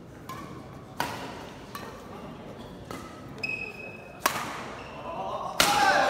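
Badminton rackets striking the shuttlecock in a doubles rally, about six crisp hits roughly a second apart, the last one the loudest, over a murmuring crowd. A brief high squeak sounds a little past the middle, and the crowd noise rises with the final hit.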